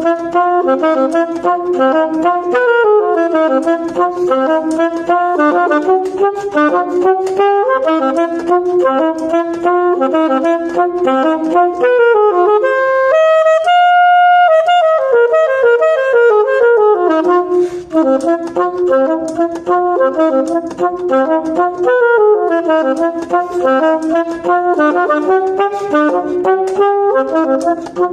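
Solo saxophone playing a quick étude: fast runs of short notes, with one long high note held for about a second and a half near the middle.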